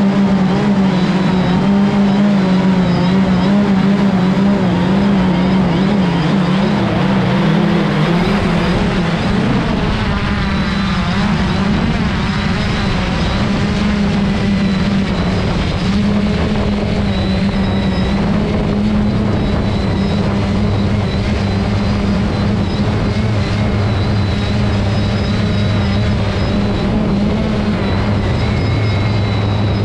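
Multirotor drone's propellers buzzing steadily, a loud hum with a slightly wavering pitch that shifts about eight seconds in as the drone manoeuvres.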